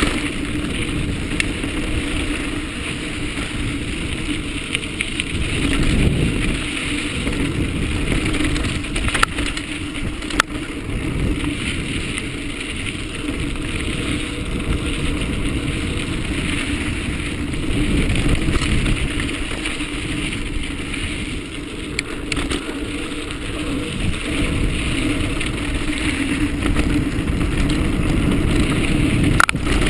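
Mountain bike riding sandy dirt singletrack: a steady rumble of tyres on the trail and wind on the handlebar-mounted camera's microphone, with a few sharp clicks and rattles from the bike.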